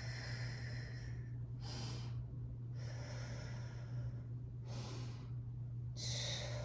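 A woman breathing audibly while holding her core tight during a yoga exercise: five separate rushes of breath in and out. A steady low electrical hum lies underneath.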